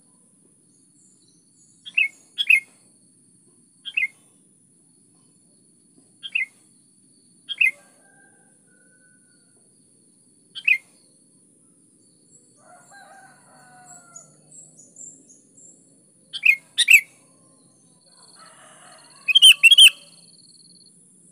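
Sooty-headed bulbul giving short, sharp calls one or two at a time with pauses of a second or more between them, the loudest calls coming near the end.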